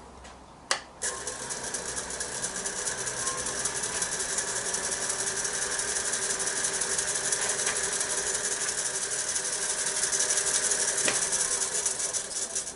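Wood lathe running at a higher speed while a turning tool takes a light finishing cut across the spinning wooden box: a steady hissing scrape over the whine of the lathe. It follows a sharp click about a second in and stops just before the end.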